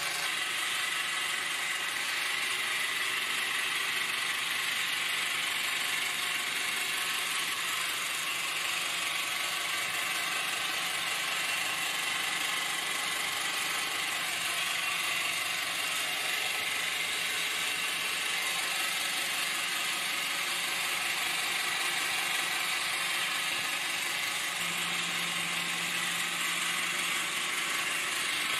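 Electric drill motor running steadily in a homemade benchtop drill press while it drills into wood. A lower hum joins near the end.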